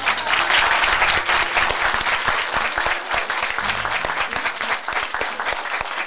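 Audience applauding. The applause breaks out suddenly and is loudest in the first couple of seconds, then carries on a little softer.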